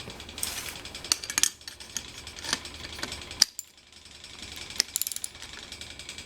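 Rapid, even mechanical ticking, with several louder clicks and knocks, while the wheelchair's wheel and hub are handled.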